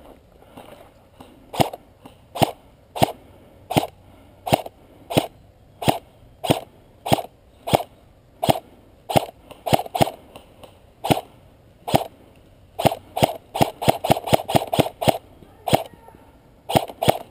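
Airsoft rifle firing single shots, a sharp crack about every two-thirds of a second, quickening to a rapid string of shots about three-quarters of the way through.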